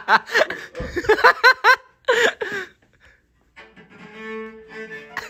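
High, excited voices squealing in quick rising-and-falling bursts for the first couple of seconds. Then, after a short pause, a cello is bowed on one steady held note.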